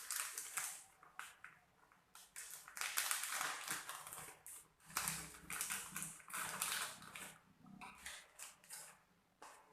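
Scissors cutting open a plastic chips packet, with the packet crinkling and rustling in irregular bursts as it is handled.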